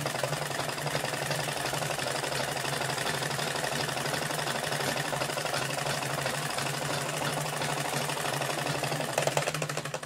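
Vintage domestic sewing machine running steadily, stitching a long straight seam along a fabric hem with a fast, even needle clatter; it stops near the end.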